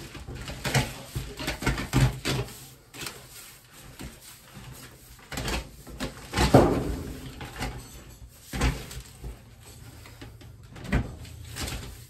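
Handling noise as aluminium foil flex dryer duct is worked into place behind a dryer: irregular knocks, bumps and rustles, the loudest about six and a half seconds in.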